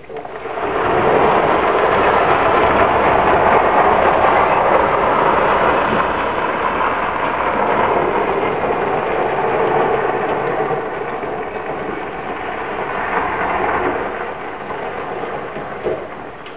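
Electric Club Car golf cart pulling a 1500 lb trailer: a steady rolling noise that comes up about half a second in and eases off near the end.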